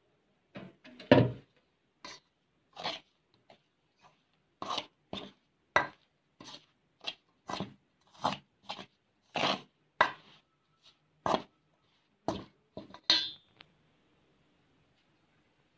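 Metal spoon clinking and scraping against a stainless steel bowl, about twenty quick strokes at roughly one and a half a second, as water is stirred into flour to start a dough. The strokes stop near the end.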